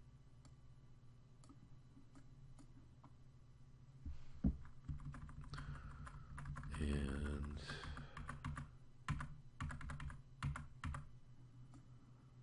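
Computer keyboard typing and mouse clicks. The clicks are sparse at first, then come in quick clusters from about four seconds in. There is one louder thump just after the clicking starts.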